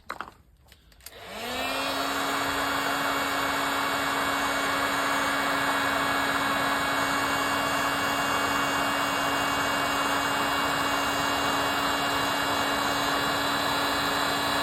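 A few clicks, then a heat gun switched on: its fan spins up over about a second to a steady blowing hum with a whine, running on without change while it heats the heat-shrink tubing over an LED strip repair.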